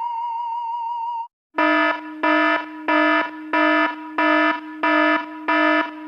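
An electronic alarm buzzer sounds in rapid repeated pulses, about one and a half a second, each a harsh buzzing tone. Before it, a wavering electronic tone from the previous effect cuts off about a second in.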